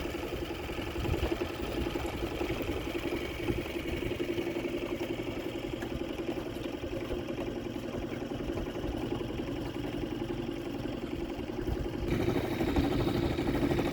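Small boat outboard motor running steadily at low trolling speed, an even drone with a fast firing pulse.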